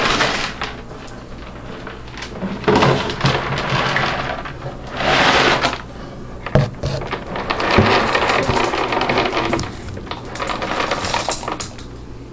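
Dog food being tipped from its packet into a bowl: several bursts of rustling and shaking, with a few sharp knocks.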